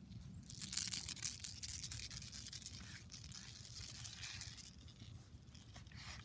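Close, crackly rustling and scraping of a plush toy rubbing near the microphone while a Bernedoodle puppy tugs and mouths at it. It starts about half a second in, is loudest over the next couple of seconds, and dies away before the end.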